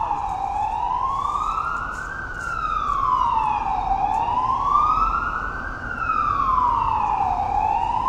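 Siren wailing, its pitch gliding slowly up and down in a cycle of about four seconds.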